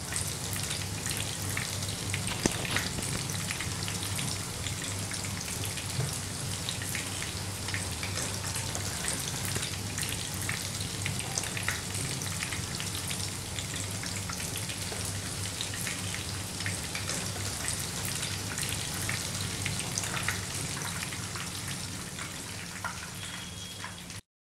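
Panko-breaded chicken donuts deep-frying in hot oil in a kadai: a steady sizzle full of small crackles over a low hum, cutting off suddenly near the end.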